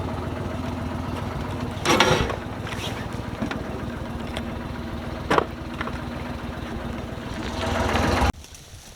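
A small engine running steadily, with two sharp knocks about 2 and 5 seconds in; the sound swells near the end and then cuts off suddenly.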